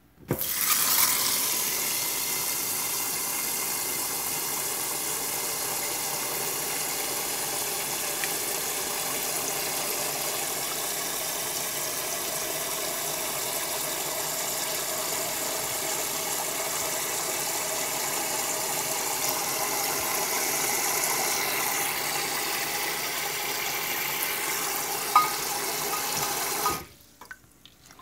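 Tap water running in a steady stream into a rice cooker's inner pot full of glutinous rice, filling it to rinse the rice. The tap comes on right at the start and shuts off suddenly near the end.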